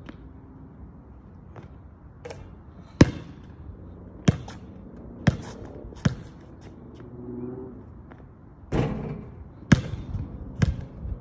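Basketball bouncing on an outdoor hard court: single sharp bounces about a second apart, with a few quicker ones near the end.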